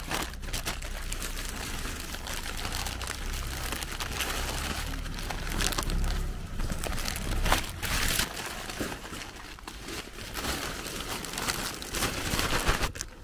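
Thin plastic bags and plastic snack wrappers crinkling and rustling unevenly as snack packets are pushed into the bags by hand.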